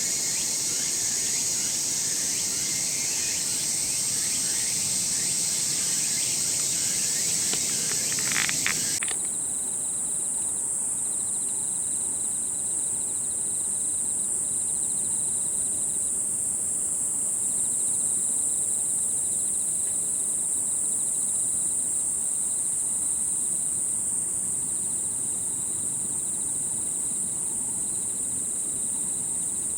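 A chorus of crickets and other singing insects on a summer evening, with a continuous high-pitched trill. About nine seconds in, the sound cuts abruptly to a different stretch where one steady high trill dominates, with a fainter lower trill coming and going.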